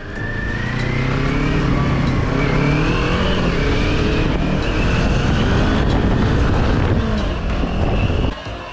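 Vehicle engine running under load and slowly rising in pitch as it accelerates, over wind and road noise; the sound cuts off abruptly near the end.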